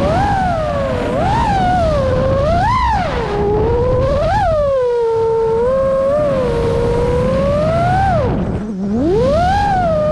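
FPV quadcopter's brushless motors whining, the pitch climbing and falling over and over as the throttle changes, over a low rush of wind. Near the end the pitch drops sharply and then climbs back up.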